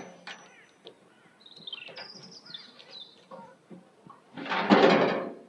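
Birds chirping with short, high whistled calls, some gently falling. About four and a half seconds in, a brief, louder rush of noise lasting under a second covers them.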